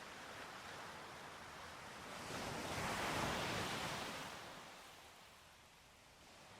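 Sea waves: a soft steady wash of surf with one wave swelling in about two seconds in, breaking, and drawing back by about five seconds in.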